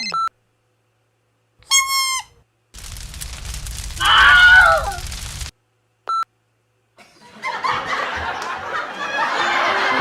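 A string of abruptly cut short sound clips separated by silences: a brief beep, a high wavering cry, a loud scream over noise, another brief beep, then laughter and noisy commotion near the end.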